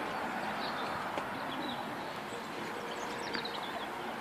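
Outdoor background noise, a steady hiss, with small birds chirping faintly a few times.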